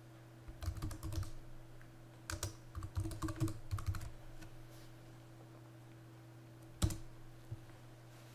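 Typing on a computer keyboard: two short bursts of keystrokes, then one harder single keystroke near the end as the Enter key runs the command. A faint steady hum sits underneath.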